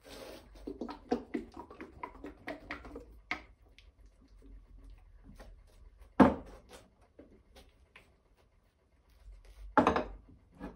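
Small can of enamel paint shaken by hand, its contents knocking in quick small clicks for about three seconds. Then a loud thud as the can is set down on a wooden workbench about six seconds in, and another thud near the end as the second can is handled.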